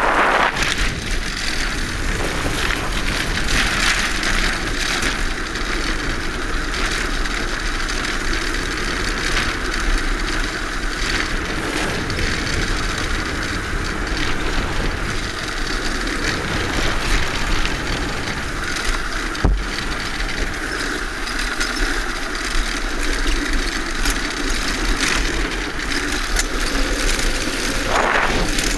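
Wind buffeting the microphone on a land yacht speeding over firm beach sand: a steady, loud rushing noise with a deep rumble underneath, mixed with the running noise of the cart's wheels on the sand.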